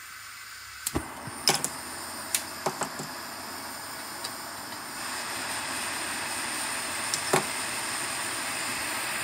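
Soviet Shmel ('Bumblebee') pressurised petrol stove lit and burning with a steady hiss that starts about a second in and grows a little louder halfway through. The stove is pressurised through a bicycle-tube valve fitted in place of its failed pump seal. A few sharp clicks and knocks sound over it.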